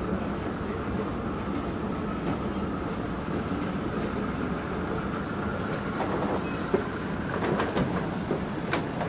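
Escalator running: a steady mechanical rumble with a constant thin high whine, and a few sharp clicks in the last few seconds.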